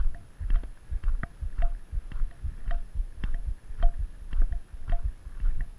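A hiker's footsteps on a gravel road, a steady walking rhythm of about two steps a second, each step a crunch with a low thud.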